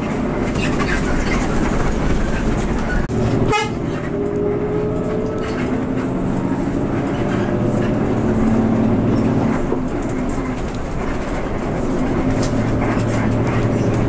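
Coach's diesel engine and road noise heard from inside the cabin while driving, with the engine note climbing as the bus accelerates between about three and a half and nine seconds in.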